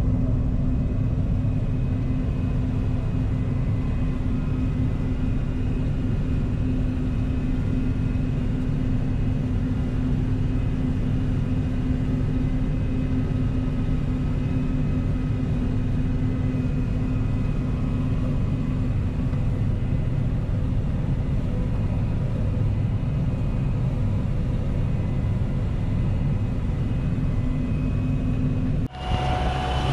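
John Deere combine harvester running steadily while harvesting wheat: a constant low rumble with a steady engine hum and fainter whines from the machinery above it. The sound drops out briefly and changes near the end.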